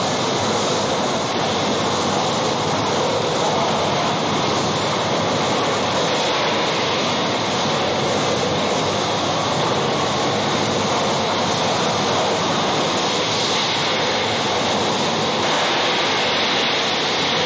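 Tunnel boring machine's cutting wheel grinding through the last of the rock as it breaks through into the gallery: a loud, steady grinding noise.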